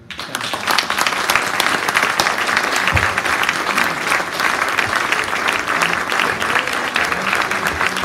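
Audience applauding: dense clapping that starts suddenly and holds steady.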